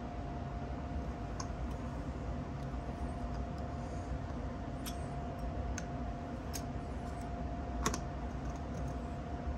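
Scattered light metallic clicks from steel engine parts being handled as the piston and wrist pin are slipped onto the connecting rod, the loudest about eight seconds in, over a steady background hum.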